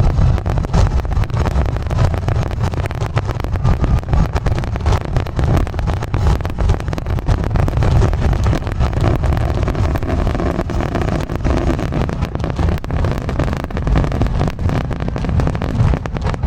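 Fireworks going off in a rapid barrage: a dense run of sharp bangs and crackles over a heavy, steady low rumble.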